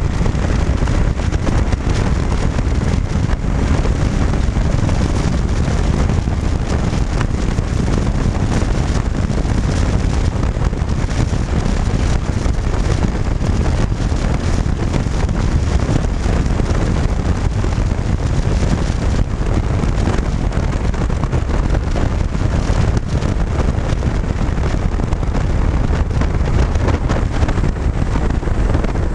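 Steady wind rush on the microphone of a moving motorcycle, with its engine running underneath. The rush is loud and even, heaviest in the low end.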